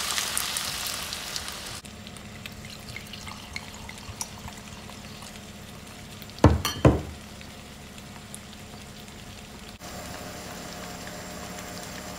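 Chopped vegetables and chorizo sizzling in a frying pan as white wine is poured in, the sizzle fading over the first two seconds. It then cuts off abruptly to a quieter steady background, with two loud knocks about half a second apart near the middle.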